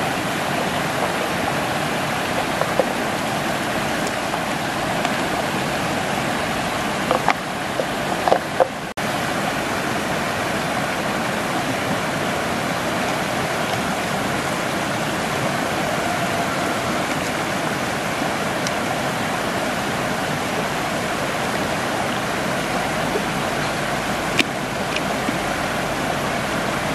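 Steady rush of water pouring over a low weir and running down a shallow stream, with a few light clicks about eight seconds in and once near the end.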